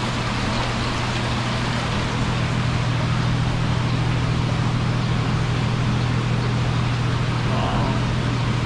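Steady low hum of the water pumps on live-seafood display tanks, over a constant hiss of circulating water.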